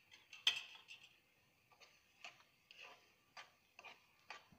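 A steel spoon stirring penne into sauce in a pan, knocking and scraping against the pan in a run of short clicks, about two or three a second, the loudest about half a second in.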